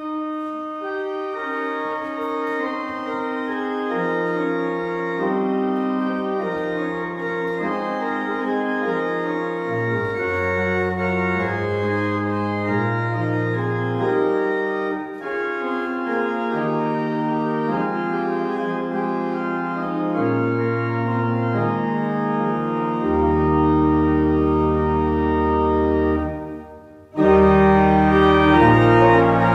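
Church organ playing slow, sustained chords over a deep pedal bass. It breaks off briefly a couple of seconds before the end, then comes back in louder.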